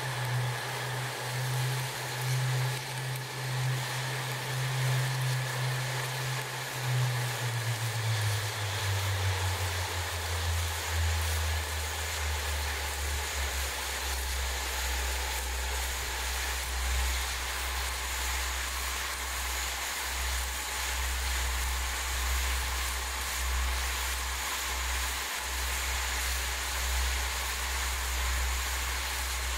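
Quadcopter motors and propellers running in flight, heard through the onboard camera, with a steady rushing noise and a low hum that drops in pitch between about seven and thirteen seconds in.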